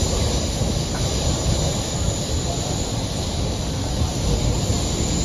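MTR K-Train (Hyundai Rotem–Mitsubishi electric multiple unit) heard from inside the car while running through a tunnel: a steady low rumble of the train on the track with a hiss over it.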